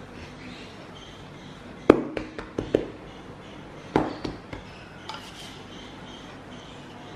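Hands patting and pressing a ball of cookie dough flat on a countertop: a quick cluster of sharp pats about two seconds in and another about four seconds in, then a faint scraping as a wooden rolling pin starts over the dough.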